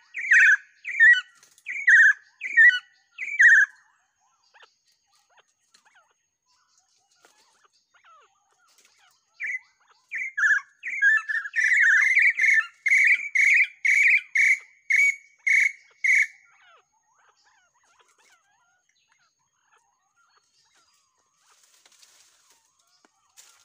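Partridge giving repeated whistled calls, about two notes a second, in two series: a short run in the first few seconds, then a longer run from about ten to sixteen seconds in.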